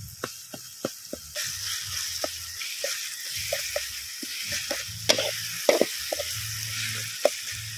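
Chopped onions and tomatoes sizzling as they fry in a metal wok, with a perforated metal spoon clicking and scraping against the pan as they are stirred. The sizzle swells about a second and a half in.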